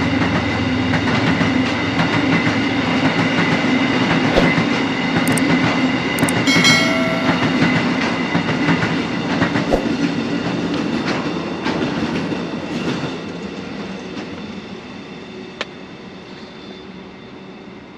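Train of sulphuric acid tank wagons rolling past on narrow-gauge track, a steady rumble with the wheels clicking over the rail joints. It fades away over the last few seconds as the end of the train moves off.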